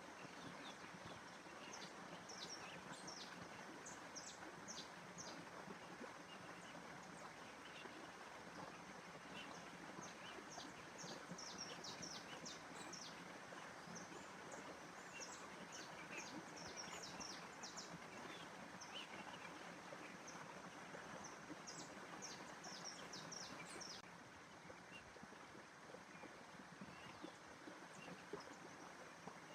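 Small birds chirping in quick, high, scattered notes over a steady rushing background noise. The chirping stops near the end, where the background drops a little.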